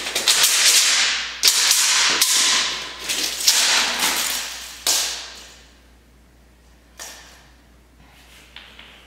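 Tape measure blade being pulled out of its case in several long strokes and slid along the rubber gym floor over the first five seconds, then a single click about seven seconds in.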